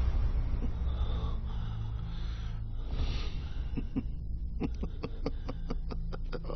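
A person breathing, heard over a low steady hum. A little past halfway the breathing turns into a quick run of short breaths, about six a second.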